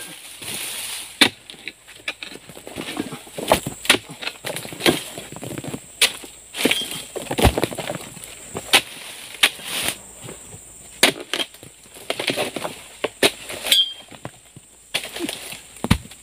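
Oil palm frond bases being chopped with a pole-mounted chisel blade: roughly a dozen sharp strikes at irregular intervals, about one a second, with rustling of palm fronds between them.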